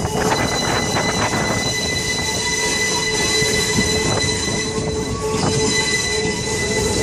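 Railroad car wheels squealing against the rails while the train rolls, a steady ringing squeal over the running rumble, with a few sharp clicks in the first second or so.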